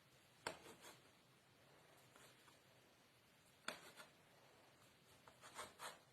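Quiet handling sounds: three short clusters of light clicks and scrapes, a little after the start, near the middle and near the end.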